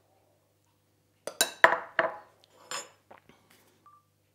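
A metal spoon clinking and knocking against a bowl while whipped cream is spooned out: a quick cluster of sharp clinks about a second in, then a few lighter taps.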